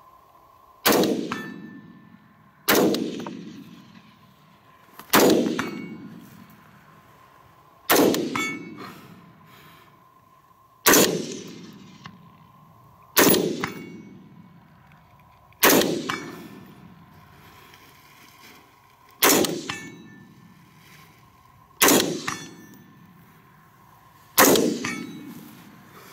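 Colt 6920 AR-15 carbine in 5.56 mm firing ten single aimed shots, one every two to three seconds, each sharp crack trailing off in a long echo across open ground.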